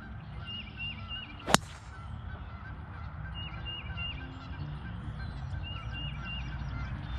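A golf club striking the ball on a swing about one and a half seconds in: a single sharp crack. Birds call in the background in short three-note phrases, repeated several times.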